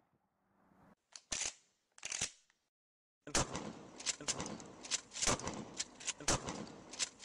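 Handling noise: a few separate sharp clicks, then from about three seconds in a busy run of clicks and rattles over rustling.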